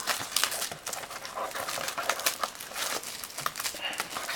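Plastic shrink wrap being torn and crinkled off a sealed trading-card box: a quick run of irregular crackles and rustles.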